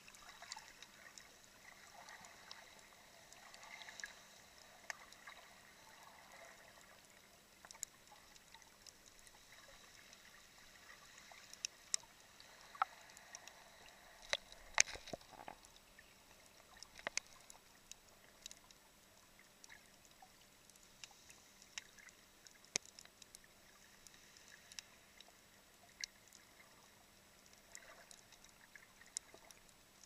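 Quiet underwater ambience picked up by a submerged camera: a faint watery hiss with scattered sharp clicks, which come thicker and louder around the middle.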